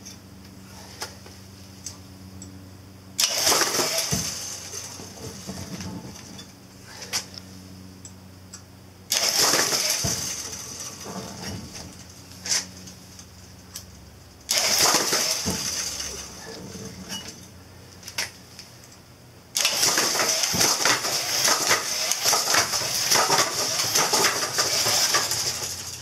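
Mechanical clatter and sharp clicks from a catapult rig driven by a choo choo quick release mechanism. It comes in four loud stretches that each start suddenly, with a low steady hum in between.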